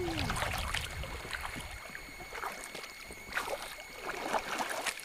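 Kayak paddle strokes splashing and dripping in swirling fast water, as scattered irregular splashes. A low rumble fades out about two seconds in.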